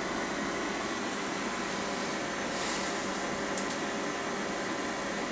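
Steady hum and hiss of room ventilation or equipment fans, with a brief soft hiss about two and a half seconds in.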